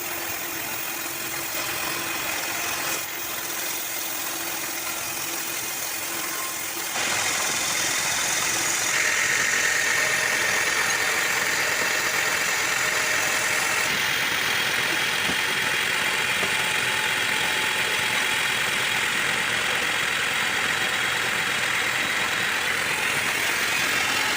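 Sawmill machinery running steadily. The sound grows louder and brighter about seven seconds in and shifts again a couple of times after that.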